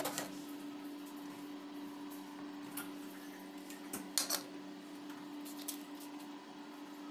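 An aluminium pressure cooker being closed: a few light metal clicks of the lid, then a louder clink about four seconds in as the whistle weight is set on the vent. A steady low hum runs underneath.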